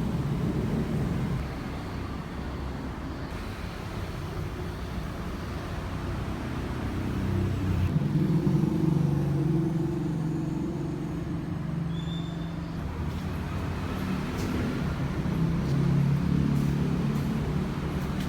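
A motor vehicle's engine running amid road noise, growing louder about eight seconds in and again near the end.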